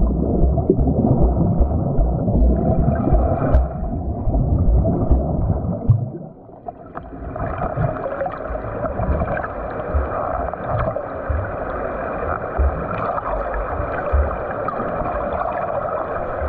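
Water churned by a swimmer doing butterfly stroke drills: heavy low thumps and splashing for about six seconds, then after a brief lull a steadier rush of water.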